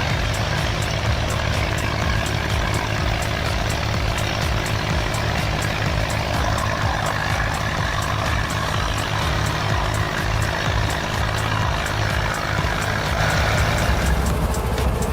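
Tractor diesel engine running steadily, with a faint regular ticking throughout. The engine note changes about fourteen seconds in.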